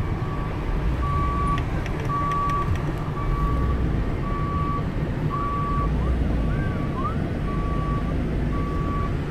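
Cargo van's reversing alarm beeping a single steady tone about once a second, with engine and road rumble underneath: the van is backing up.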